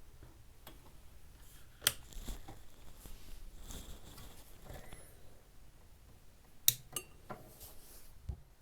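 A few sharp clicks over faint handling noise: one about two seconds in and a quick pair near seven seconds.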